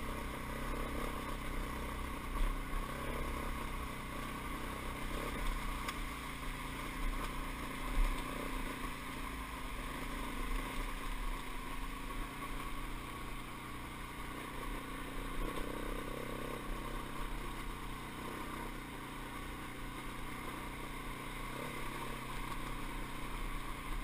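Dirt bike engine running steadily at low trail speed, heard from a helmet-mounted camera.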